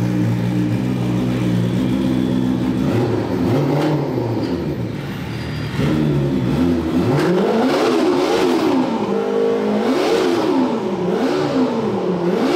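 Snowmobile engine running at a steady fast idle with a short rev about four seconds in, then revved again and again from about halfway through, its pitch rising and falling roughly every second and a half.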